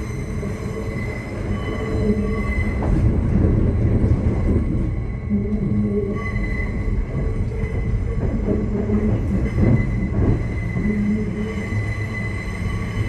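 Queensland Rail electric suburban train running, a heavy low rumble with steady electric humming tones that fade in and out.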